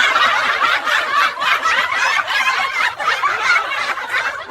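Sustained laughter, snickering and chuckling in quick breathy pulses.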